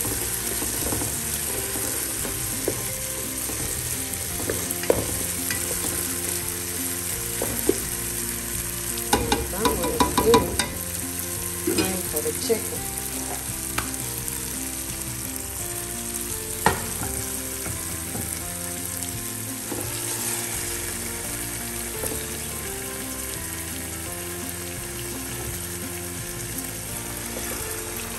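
Food sizzling and frying in a pot as it is stirred, with a spoon knocking against the pot in a quick cluster about a third of the way in and once more a little past halfway.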